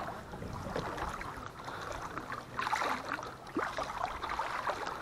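River water lapping and splashing around a kayak, with small irregular splashes.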